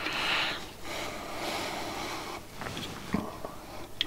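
Rosin-core solder melting under a soldering iron tip: the flux sizzling and crackling in a few short spells, with a couple of light clicks.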